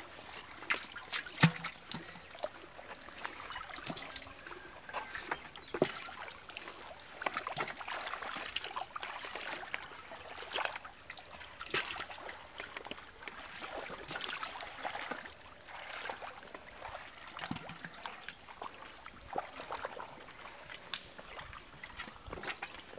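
Hands squelching and sloshing through soft wet mud and shallow muddy water, with irregular wet slaps and splashes.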